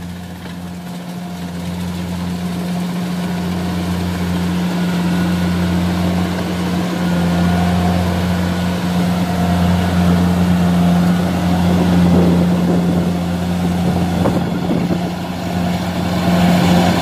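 Diesel engine of a rice combine harvester running steadily at a constant pitch, growing gradually louder.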